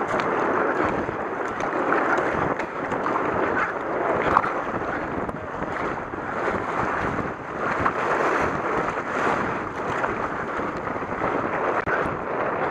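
Rushing river water and the splash of a K1 kayak's paddle strokes through small rapids, swelling and fading every second or two.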